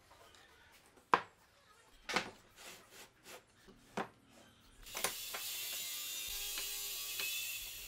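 Plywood and wooden jig pieces handled on a workbench: one sharp wooden knock about a second in, then several lighter knocks and taps. Near the end comes a steady rubbing hiss for about three seconds, wood sliding against wood.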